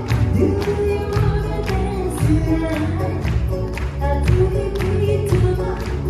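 Live pop band of ukuleles, electric bass and drums playing a steady dance beat, with a woman singing the melody and the audience clapping along.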